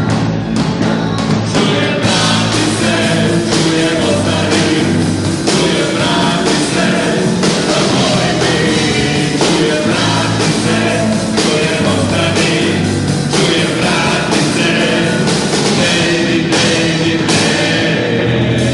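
Live rock band playing: drum kit beating a steady rhythm under electric guitar and bass, with voices singing into microphones.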